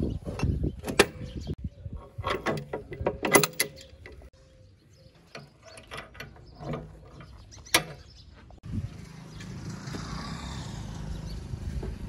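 Metal clanks, knocks and rattles from a tractor trolley's steel tailgate latch worked by hand: the screw-clamp lever and chain strike the sheet-steel body in a quick run of sharp knocks, then thin out to a few ticks. About three-quarters of the way in, the sound changes abruptly to a steady outdoor noise.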